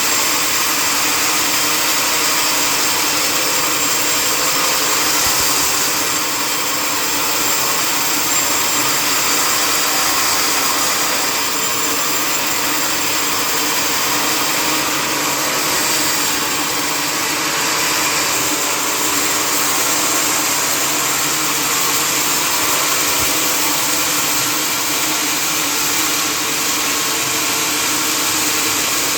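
Sawmill machinery running with a loud, steady mechanical noise that holds almost unchanged throughout.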